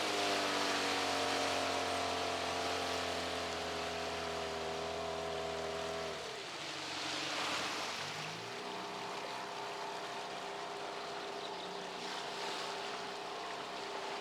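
Hidea 9.9 outboard motor running steadily under way, then throttled back about six seconds in, with a brief rush of water as the boat slows, after which it runs on at lower revs.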